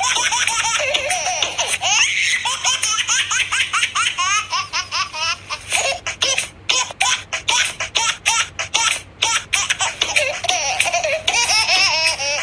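High-pitched laughter in rapid pulses, with a stretch of quick, evenly repeated bursts in the middle.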